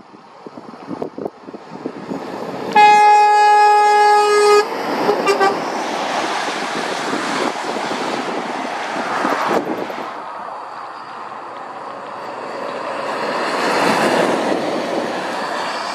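A lorry horn sounds one steady blast of nearly two seconds, about three seconds in, then a couple of quick short toots, from the passing Scania low-loader. After that comes lorry engine and tyre noise on the wet road, which rises again near the end as a second Scania articulated lorry passes.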